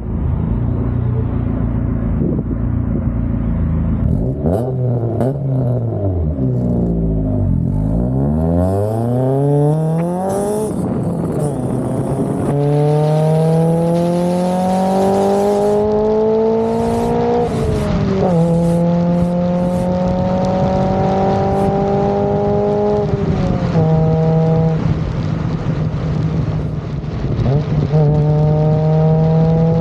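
Honda CRX's engine accelerating through the gears: its pitch climbs steadily in each gear and drops sharply at each upshift, about every five seconds through the second half. Over the first ten seconds there is a tangle of rising and falling tones.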